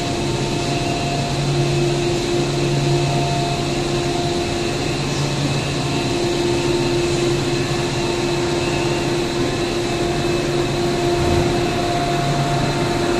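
Steady machinery hum of a five-extruder cast stretch film line running: motors and fans, with a few steady tones over an even noise.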